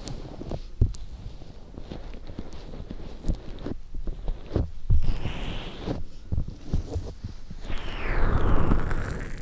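Fingertips tapping and rubbing the fur-covered ears of a homemade binaural microphone: dull, muffled thumps close to the mic with scratchy fur rustling between them, and a louder stretch of rubbing near the end.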